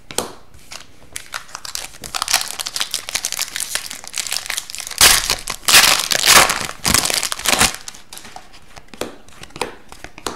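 The foil wrapper of an Upper Deck hockey card pack is torn open and crinkled by hand, a dense crackling that builds from about a second and a half in and is loudest a few seconds later. Before and after it, trading cards are flicked and slid against each other in light ticks.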